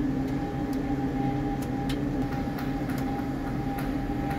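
Steady mechanical hum holding two even tones over a low rumble, with scattered faint clicks.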